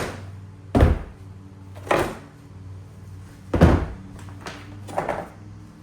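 Batteries being pulled out of a DIY power station's case and set down, making five dull thunks at uneven intervals of about a second, over a low steady hum.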